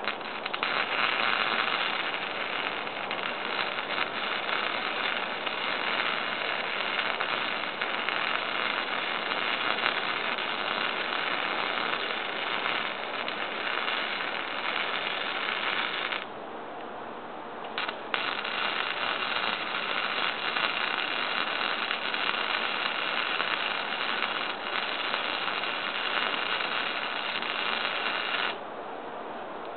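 Lincoln wire-feed welder arc crackling steadily as a weld bead is laid, in two long runs: the first stops about halfway through, a short restart blip follows, then a second run that cuts off suddenly near the end.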